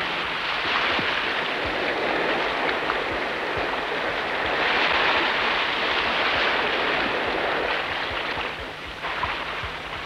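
Surf washing on a rocky shore, a steady rushing that swells about halfway through and eases a little near the end.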